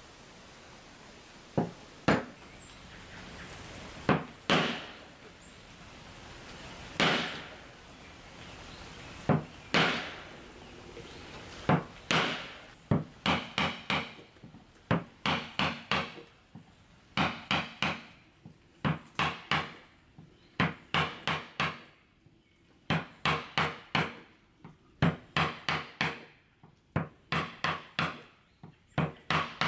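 Repeated sharp blows of a hand tool striking wood, each with a short ringing note. A few single strikes a couple of seconds apart come first, then from about halfway on quicker runs of two to three blows a second, broken by short pauses.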